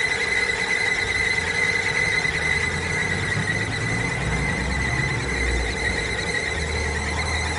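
Steady high-pitched squeal from a car engine's timing belt drive while the engine runs, over a low engine rumble: the timing belt noise being diagnosed.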